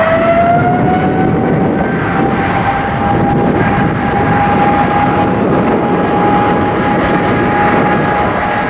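Jet airliner engines spooling up: a loud, steady roar with a strong whine that rises in pitch over the first couple of seconds, then holds steady.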